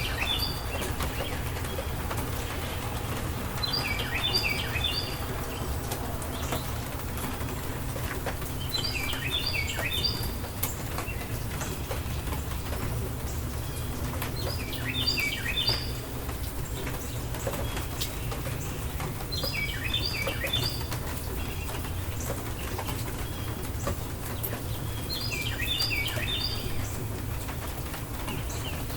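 Steady rain with a low rumble underneath, while a songbird sings a short phrase of quick falling chirps about every five to six seconds.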